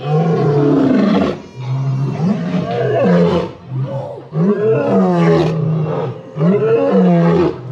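White lions giving a loud series of roaring, growling calls, each about a second long with short breaks between, during mating.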